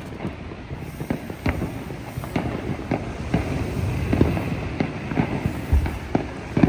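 Fireworks going off all around: many irregular sharp bangs and pops, overlapping, several a second, over a steady crackling haze.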